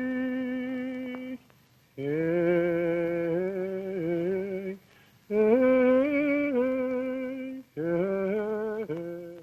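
Slow singing in held notes that step up and down in pitch, in four phrases broken by short pauses; in the later phrases two parts move together in parallel.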